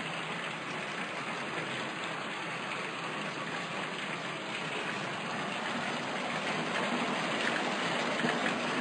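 Steady, even hiss of water, like falling rain, without breaks.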